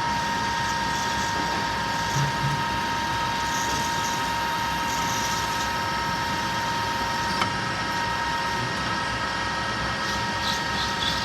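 Manual metal lathe running under power while taking a cut: a steady whine over a machine hum, with a single click about seven seconds in.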